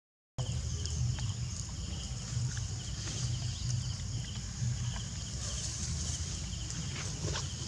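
Outdoor ambience: a steady low rumble under a high, pulsing drone, with a few soft clicks scattered through. It starts after a brief moment of silence.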